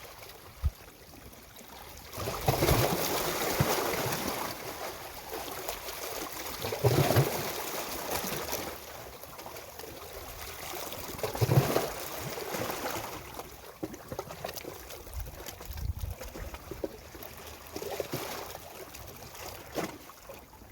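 Sea waves washing onto the shore, the hiss of water swelling and fading in surges every four to five seconds, with a brief knock about a second in.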